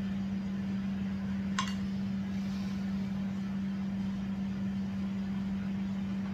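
A steady low hum, with one short clink of a spoon against a plate about one and a half seconds in.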